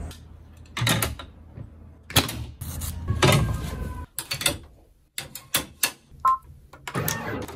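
Plastic and metal clicks and clatter from an embroidery hoop being clamped on a hooping station and clipped onto an embroidery machine's arm, with the rustle of sweatshirt fabric. A short electronic beep comes from the machine a little after six seconds in.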